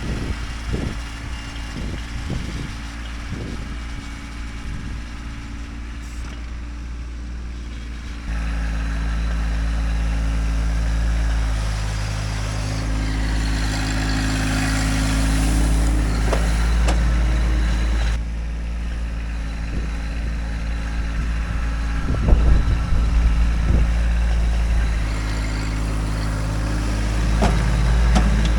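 Kubota tractor's diesel engine running, the revs stepping up about eight seconds in and holding there as the tractor works dirt, with a few clanks and knocks along the way.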